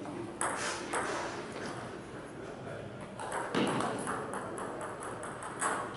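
Table tennis ball being hit back and forth, clicking off the paddles and the table: two taps in the first second, then a quick run of taps from about three seconds in as a rally gets going.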